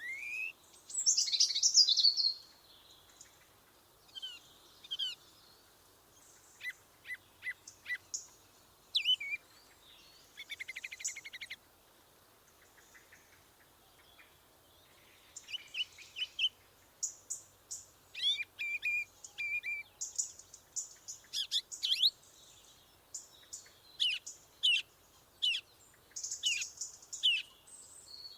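Several songbirds singing and calling in a forest: short chirps, whistled notes and rapid trills, a loud burst of song about a second in and a denser chorus in the second half.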